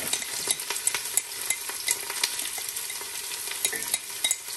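Sliced onions sizzling in hot cooking oil in a stainless-steel pot: a steady hiss with many small pops and crackles throughout.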